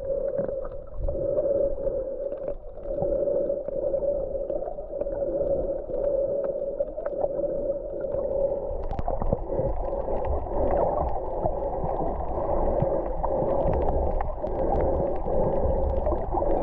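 Underwater sound through a submerged camera: a steady muffled hum with scattered clicks and crackles, the clicks thicker in the second half.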